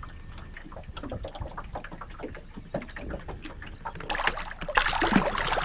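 Water lapping faintly against a boat hull, then about four seconds in a sudden burst of loud splashing as a hooked fish thrashes at the surface beside the boat.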